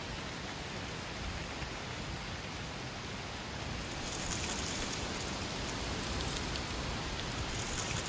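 Outdoor woodland ambience: a steady rushing hiss in the trees, growing a little louder about halfway through.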